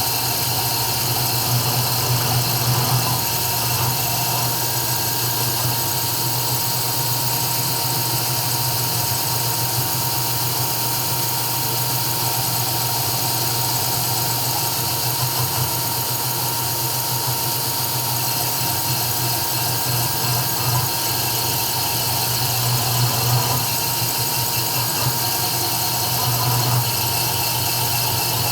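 CNC 3040 desktop router engraving: the spindle and axis motors run steadily with a high whine over a low hum, swelling slightly now and then.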